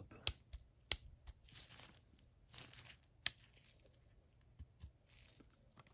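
Sharp metallic clicks from a magnet tool meeting the steel parts of a KAL USA 3/8-inch drive ratchet head as a part is lifted out, three loudest: about a third of a second in, about a second in, and just after three seconds. Soft rustling of nitrile gloves handling the ratchet comes between.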